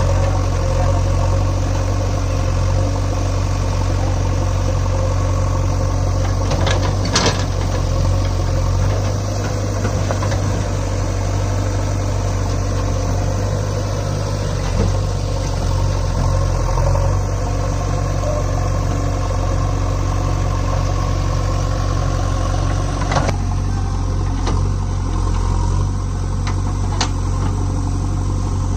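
Diesel engines of an HMT 3522 tractor and a JCB backhoe loader running steadily with a deep, even hum. A few short sharp knocks stand out above it.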